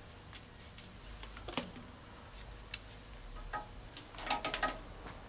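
Light metallic clicks and clinks of small parts and tools being handled at an engine cylinder head. Scattered single ticks come first, then a quick cluster of ringing clinks about four seconds in.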